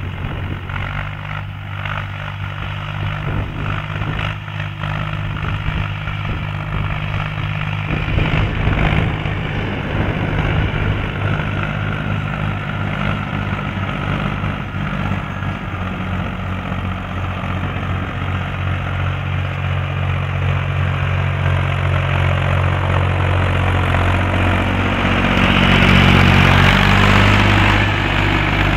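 Ursus C-360-3P tractor's four-cylinder diesel engine running steadily under load while pulling a harrow across dry ground. Near the end it gets louder, with a rising hiss of the harrow tines dragging through the dry soil.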